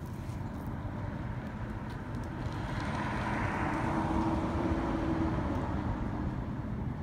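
A vehicle passing: a steady rush that swells about three seconds in, with a faint low hum at its peak, then fades away.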